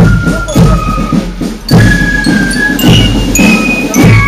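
Marching band playing: high, held bell-like notes over a regular drum beat.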